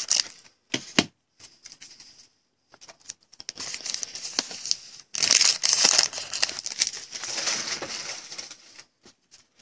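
Wrapper of a trading-card pack being torn open and crinkled by hand, in uneven bursts of crackling, loudest about halfway through.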